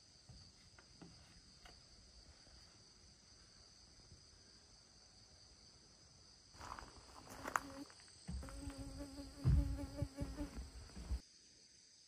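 Steady high chirping of crickets in the forest. From about six and a half seconds in, a flying insect buzzes close by, with a few knocks and a thump among it, until it cuts off suddenly near the end.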